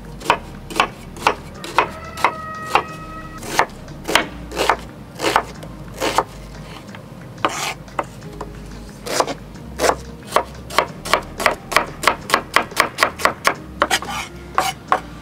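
Chef's knife slicing an onion on a wooden cutting board: crisp knife strikes on the board, about two a second at first, then quickening to a fast run of chops near the end.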